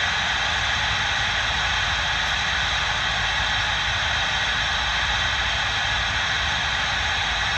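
Steady hiss of static from a two-way radio's speaker, an open channel with no voice on it.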